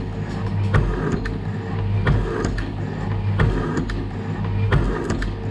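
Metal shaper running under cut, its motor humming steadily while the ram strokes back and forth, with a knock about every 1.3 seconds as each stroke reverses and lighter clicks between.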